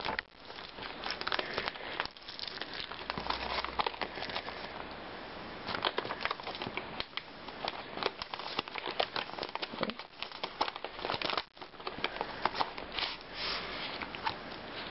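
Paper envelope and plastic wrapping crinkling and rustling in irregular crackles as a taped mailing envelope is opened by hand and a plastic-wrapped packet is pulled out.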